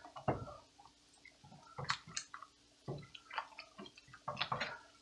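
Plastic spatula stirring a thick, creamy sauce in a stainless steel pot: wet squelching with small knocks against the pot, in short irregular bursts.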